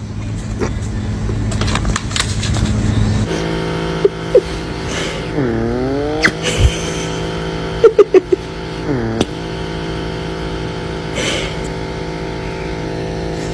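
A handheld pet nail grinder switches on about three seconds in and runs with a steady whine. Twice its pitch sags and picks back up as the spinning head is loaded, and a few sharp clicks cut in.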